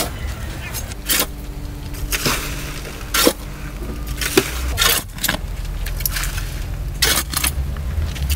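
Sand being scooped with a shovel and poured out: irregular gritty scrapes and rushes of falling sand about once a second, over a low steady hum.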